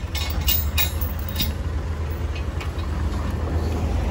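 Truck engine running steadily at a low idle, a deep continuous rumble. A few short sharp clinks or hisses sound over it in the first second and a half.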